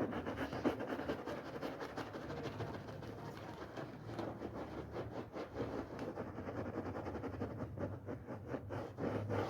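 A wet, soapy rug being scrubbed: a dense, irregular run of scraping strokes over a steady low hum.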